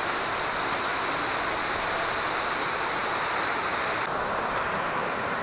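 Steady rushing hiss of waterfalls and cascading water, with the brighter, higher part of the hiss dropping away about four seconds in.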